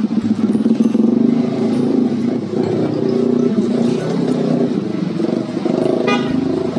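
Vehicle engines running steadily in street traffic, with a short rattling burst about six seconds in.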